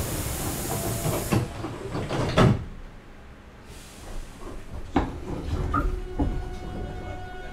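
Hankyu 8000 series train at a station stop: the sliding doors close with a hiss of air and several thuds, followed by a couple more clunks. Near the end, steady electric tones from the Toshiba GTO-VVVF inverter set in as the train gets ready to pull away.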